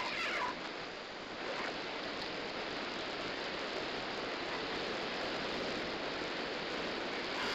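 Steady noise of a large arena crowd, an even hiss-like wash with no distinct events, heard through an old television broadcast's narrow sound.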